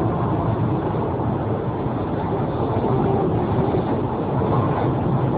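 Strong storm wind blowing steadily, a continuous rushing noise with low rumble on the microphone.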